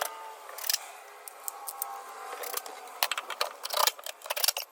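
Dryer vent parts being handled and fitted back together: a run of sharp clicks and rattling knocks, sparse at first and coming thick and fast in the second half.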